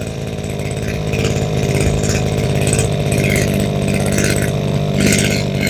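Makita MEM232 brushcutter's 23cc engine running steadily.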